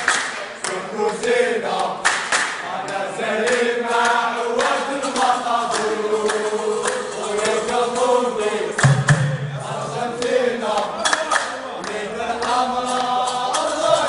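A chorus of voices singing a football supporters' song in Algerian Arabic, over sharp percussion hits; a low bass comes in for about a second around nine seconds in.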